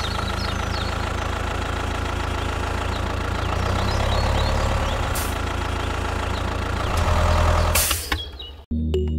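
Tractor diesel engine running steadily; it swells louder about seven seconds in and cuts off suddenly near the end.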